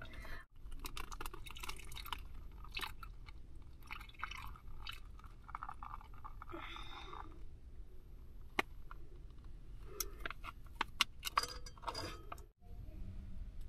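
Plastic bag crinkling, with light clicks and clinks of containers at a rice cooker pot, as vegetables are tipped in, over a low steady hum.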